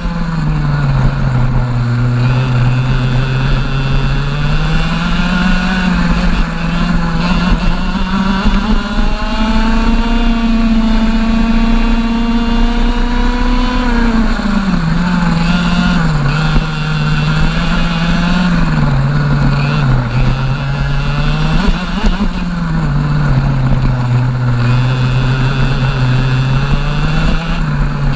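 A TAG kart's 125cc two-stroke engine at racing speed, heard onboard. The revs climb and hold high for several seconds on a straight about a third of the way in, then drop and rise again and again through the corners.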